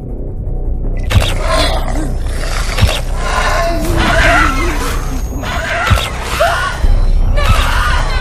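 Horror-trailer sound design: a low rumbling drone, then from about a second in harsh creature-like shrieks and growls over it, punctuated by a few sharp hits.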